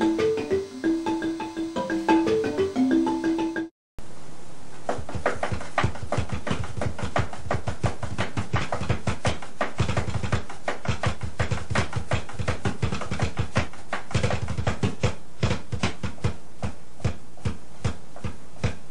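A large wooden marimba struck with mallets, playing a melody of single ringing notes. About four seconds in it cuts off and a set of three drums is played fast with sticks: a rapid, continuous run of strikes.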